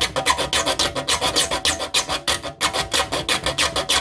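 A metal file rasping across the teeth of a hand saw in quick back-and-forth strokes, several a second, with a brief pause about two and a half seconds in. The strokes are sharpening and reshaping a badly worn tooth.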